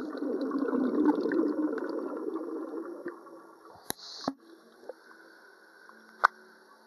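Muffled bubbling and gurgling recorded underwater in a swimming pool as a swimmer exhales air bubbles, strongest in the first few seconds and then fading. A few sharp clicks follow, the loudest near the end.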